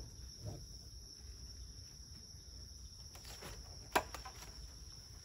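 Night crickets chirring steadily in a continuous high-pitched trill. About four seconds in comes a single sharp knock as the wooden beehive lid is handled, with a few faint ticks just before it.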